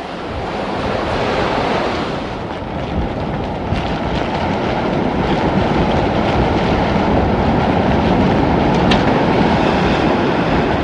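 Hurricane wind blowing in a steady rushing noise, buffeting the microphone.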